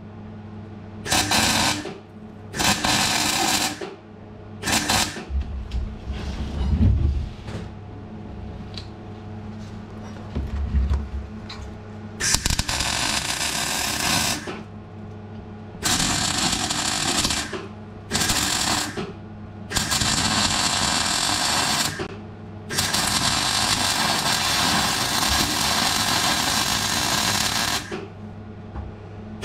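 Electric arc welding on steel: the arc crackles and sizzles in a string of short runs and tacks of one to five seconds each, stopping and striking again about nine times. A steady low hum runs underneath.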